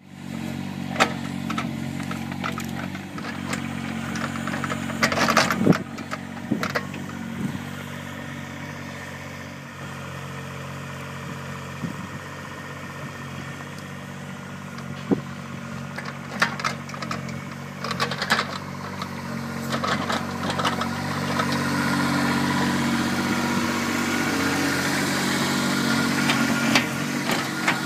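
Kubota RX-202 mini excavator's diesel engine running steadily as the machine digs, with scattered knocks and clanks. The engine gets louder about two-thirds of the way in.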